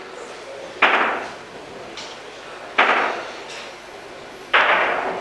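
Three sharp knocks about two seconds apart, each dying away within half a second, with a couple of fainter ticks between them.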